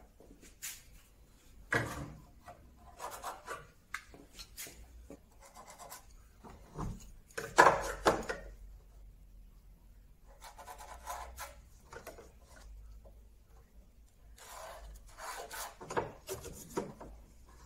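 A steel square and rule knocking and sliding on a wooden bed rail, with a ballpoint pen scratching along the edge to mark cut lines. A sharp clack about halfway through is the loudest sound.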